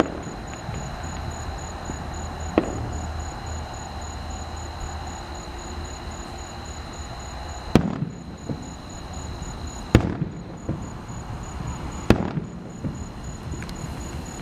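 Fireworks display: one fainter bang, then three loud sharp booms about two seconds apart in the second half, over a steady background with a faint high pulsing tone.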